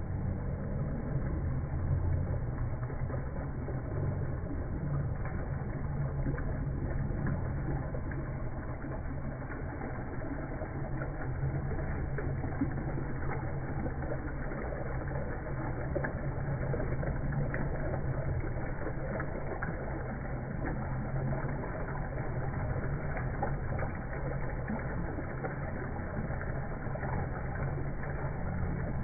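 Water running and splashing down a rock face into a pool: a steady, even rushing noise, heaviest in the low range.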